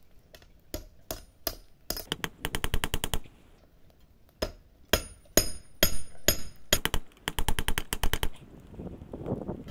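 Small hammer beating hot steel rebar on a sledgehammer head used as an anvil, flattening it into a blade. The blows come singly and in quick runs of about ten taps a second, some ringing with a high metallic note.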